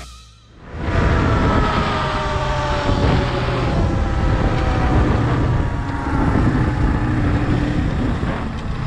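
Motorcycle engine running under way, a loud, dense rumble with a pitch that eases slowly downward over the first few seconds. It comes in about a second in, after a brief drop in level.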